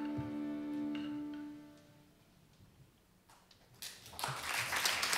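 The last held note of the children's piece rings and fades away in the first two seconds. After a short near-silent pause, audience applause starts about four seconds in and grows.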